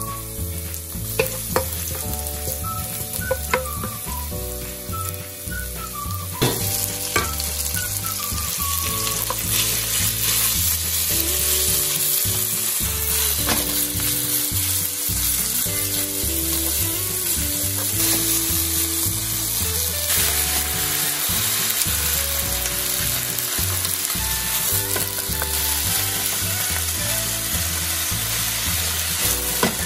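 Food sizzling and frying in oil in a nonstick frying pan as it is stir-fried: first minced garlic, then sliced pork and cabbage, stirred with chopsticks and a wooden spatula. The sizzle grows louder about a third of the way in. There are a few sharp clicks in the first several seconds.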